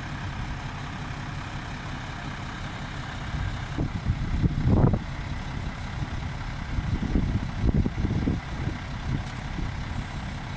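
Heavy engine running steadily at a low rumble, with louder surges about four seconds in and again around seven to eight seconds.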